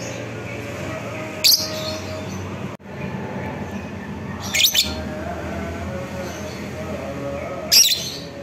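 Fischer's lovebird giving three short, sharp, high-pitched shrieks, spaced about three seconds apart, over steady low background noise.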